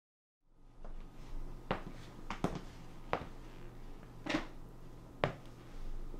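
Dead silence that gives way about half a second in to quiet room tone with a steady low hum. About six sharp, separate taps or clicks fall irregularly over it, roughly half a second to a second apart.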